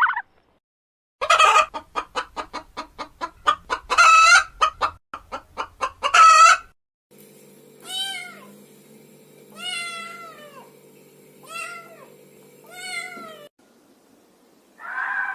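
A hen clucking in a quick run of short calls broken by three louder squawks. After a cut, a cat meows four times, each meow about a second long, over a steady low hum.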